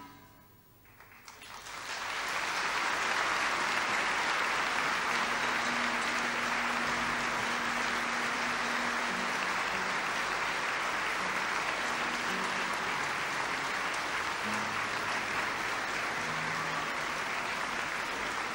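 Large audience applauding, the clapping swelling up about a second in and then holding steady as a dense, even wash.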